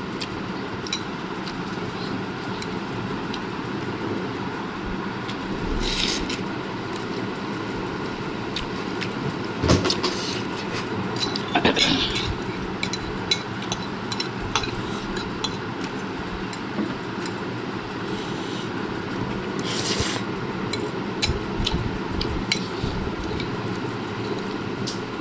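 Metal fork and spoon clicking and scraping against a plate of instant noodles while eating, with a louder run of clinks about halfway through, over a steady low background rumble.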